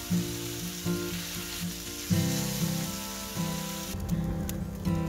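Pork belly and sour kimchi sizzling in a grill pan over a portable gas burner, with background music playing. About four seconds in, sharp crackles and pops join the sizzle.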